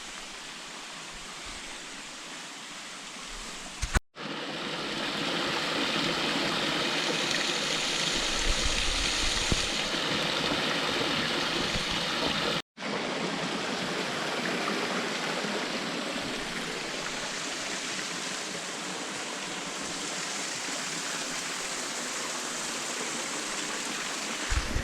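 Rushing stream water, a steady even noise. It breaks off abruptly twice, about four seconds in and about halfway through, and is louder after the first break.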